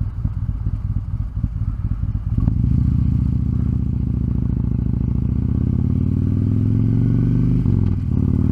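Harley-Davidson Road King's V-twin engine idling with an uneven lope, then about two and a half seconds in pulling away and getting louder, its pitch rising steadily as it accelerates, with a short dip near the end.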